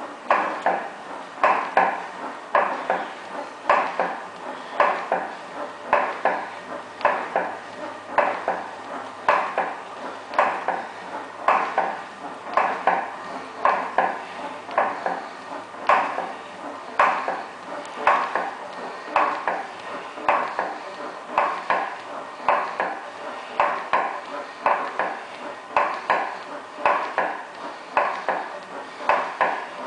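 Yowza Captiva elliptical trainer in use, giving a sharp repeated knock about every two-thirds of a second, with lighter clicks in between. This is a fault noise on a machine only a couple of months old.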